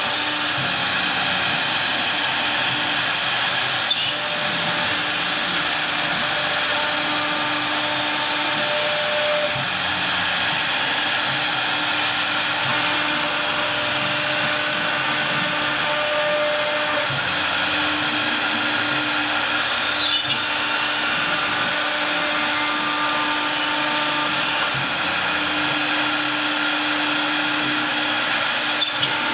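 CNC router spindle running and milling a pattern into a sheet: a steady machining whine and cutting noise, with lower hum tones switching on and off as the head moves, and a few brief clicks.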